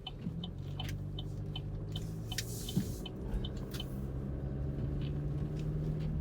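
Car cabin: steady engine and road rumble with a low hum, and a turn-signal indicator ticking evenly about two or three times a second.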